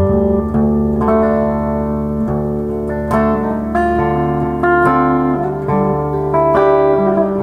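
2013 Gretsch White Falcon G6136T hollow-body electric guitar on its Filtertron neck pickup, played through a Laney amp: picked notes and chords ringing on, a new one struck every second or so. Its bass-enhance toggle is in the upper, high setting, which warms the tone up further.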